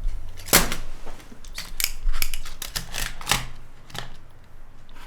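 An irregular run of about ten sharp clicks and snips from hand work on a small cassette player, the loudest about half a second in and again about three seconds in.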